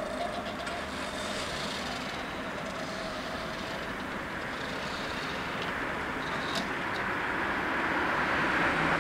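Road traffic noise at a railway level crossing while the barrier booms lift, with a faint steady hum in the first few seconds. The noise grows louder toward the end as a car approaches over the crossing.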